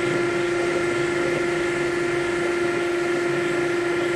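Multi-cut spring seat cutter running in the machine spindle and cutting a cast iron cylinder head, machining the valve stem seal boss and the inner spring landing: a steady machine hum with a constant whine over the cutting noise.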